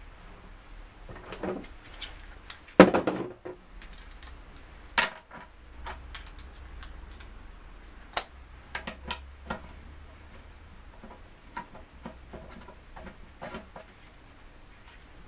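A socket wrench and steel bolts clicking and clinking as the 13 mm tailpiece bolts of a ZF 5HP18 automatic gearbox are undone, in irregular sharp clicks and knocks. The loudest is a short metallic clatter about three seconds in, and there is a sharp knock at about five seconds.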